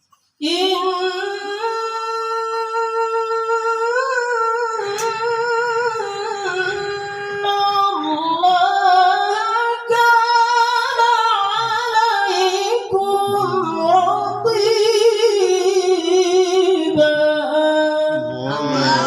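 A woman reciting the Qur'an in melodic tajwid style, drawing out long melismatic phrases with vibrato and slow rises and falls in pitch.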